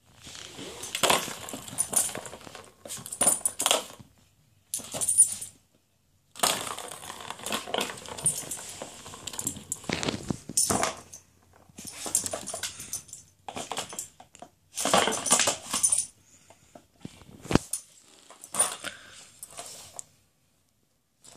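A plastic cat track-ball toy being nosed and pawed by a pug puppy: the ball clatters and rolls around the plastic track in spurts with short pauses, mixed with the puppy's sniffing at the holes.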